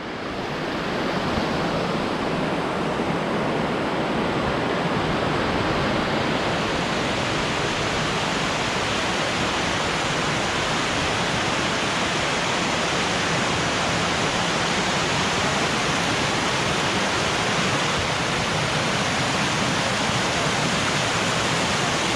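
A waterfall of about ten metres' drop rushing steadily, an even wash of falling water that fades in over the first second or so.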